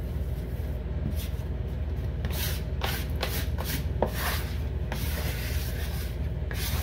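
Hands kneading a ball of puff-pastry dough on a countertop, then a plastic bench scraper scraping dough off the counter: a series of dry rubbing and scraping strokes, thickest from about two to five seconds in, over a steady low hum.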